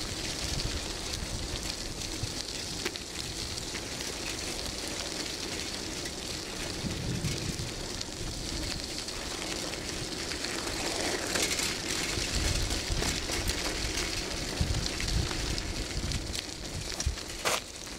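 Loose gravel of an unpaved road base crunching and crackling steadily under slow forward travel, with low gusts of wind buffeting the microphone twice and a few sharp clicks near the end.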